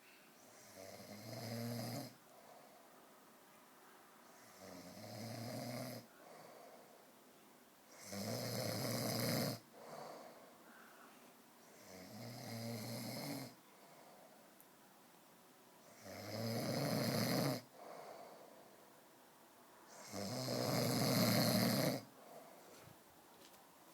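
A man snoring very loudly in his sleep: six long snores, each lasting a second and a half to two seconds, coming about every four seconds with quiet breaths between, the last one the loudest.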